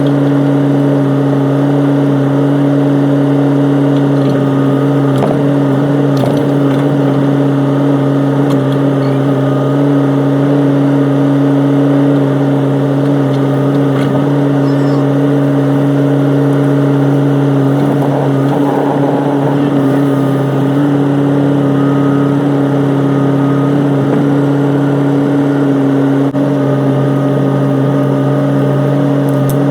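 Excavator engine running at a steady, unchanging speed, a loud constant hum with a few faint knocks about five to six seconds in.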